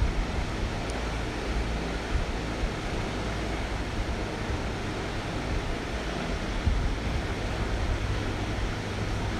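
Grated-potato tikkis frying in hot mustard oil in a pan, a steady sizzle, with a low rumble underneath.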